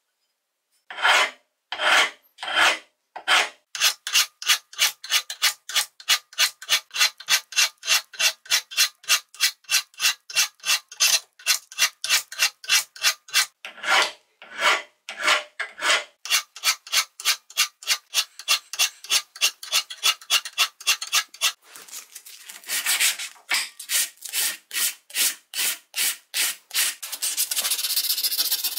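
Rhythmic hand scraping back and forth on a rusty wrench to strip the rust, about three strokes a second after a few slower opening strokes. Near the end the strokes run together into a steady rasping.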